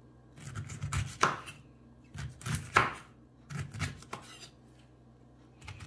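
Kitchen knife cutting the skin off pineapple on a wooden cutting board, in several short bursts of cuts and knocks against the board.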